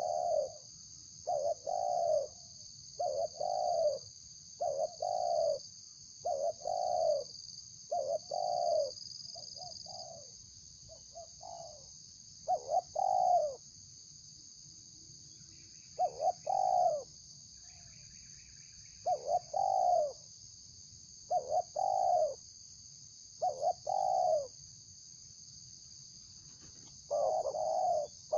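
Spotted dove (tekukur) cooing over and over in short phrases of low notes, with a pause of a few seconds midway. A steady high-pitched hiss runs underneath.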